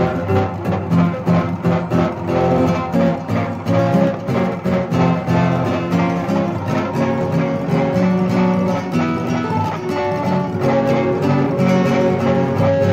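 Classical guitar being played, a continuous run of chords and picked notes.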